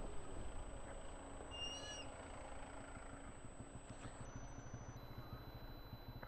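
Low, steady rumble of vehicles idling in a stalled traffic jam. A single short, high bird call sounds about two seconds in.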